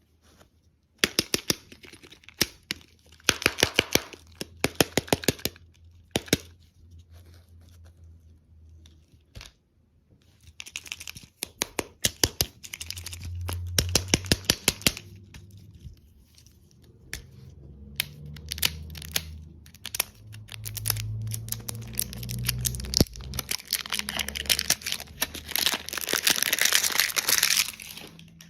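Plastic candy wrappers being torn open and crinkled, in several bursts of rapid, sharp crackling with short pauses between; the loudest, densest crinkling comes near the end.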